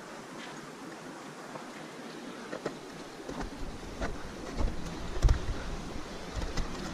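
Footsteps on rough glacier ice, a few irregular steps, over a steady hiss. From about halfway, wind buffets the microphone with a low rumble.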